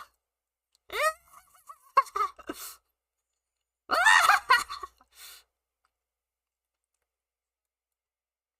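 A person's voice laughing in two short bursts about three seconds apart, the second one louder, all in the first half.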